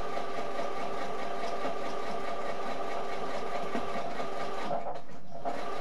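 Electric domestic sewing machine stitching steadily, its motor humming with rapid needle strokes, sewing the closing seam of a rice-filled fabric bag. The machine stops shortly before the end, followed by a few short clicks.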